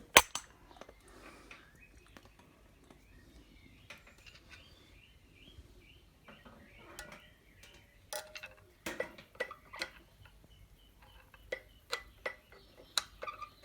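Click-stop vernier adjuster on a BSA A70L Lightning front brake being turned with a screwdriver, giving irregular small clicks as it steps round. There is one sharp click at the start, and the clicks come thicker and clearer in the second half.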